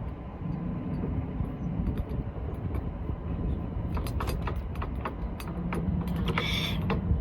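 Metal tools and parts clinking several times over a steady low rumble, with a short higher-pitched whir about six seconds in.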